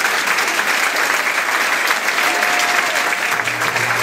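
Audience applauding, dense and steady, with a few faint voices rising above it. A low steady hum comes in near the end.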